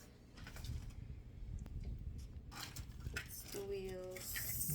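Scattered light knocks and clicks of parts being handled during furniture assembly, with a brief hum-like voice sound near the end.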